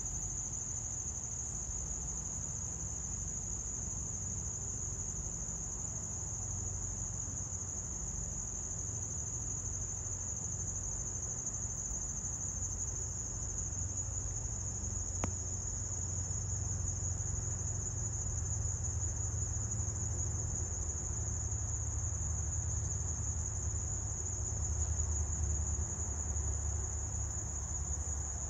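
A steady, high-pitched insect chorus holding one unbroken pitch, over a low rumble that swells near the end.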